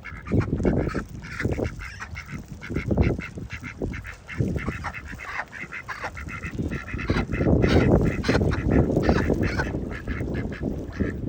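Waterfowl calling over and over in quick, short honks and quacks, with gusts of wind buffeting the microphone that grow strong in the second half.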